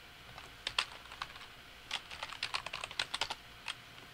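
Keystrokes on a computer keyboard typing a web address: a few separate key presses, then a quick run of about a dozen keystrokes starting about two seconds in, and one last key near the end.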